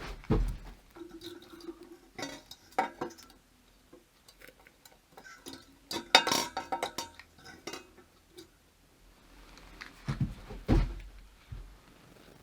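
Metal and glass clinking and knocking as an oil lantern is handled and readied for lighting: scattered irregular clinks, busiest about halfway through, with a couple of duller thumps near the end.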